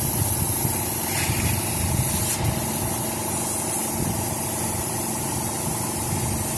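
Steady hiss of compressed air during inflation of a freshly seated wide rear motorcycle tire, over a constant low machine drone.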